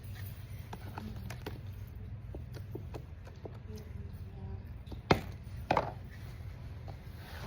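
Scattered light taps and clicks from slime-making containers and utensils being handled, with two sharp knocks a little past the middle, over a steady low hum.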